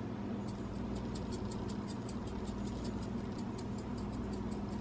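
Dried thyme being shaken from a spice jar into a pot of soup: a quick run of faint ticks, over a steady low hum.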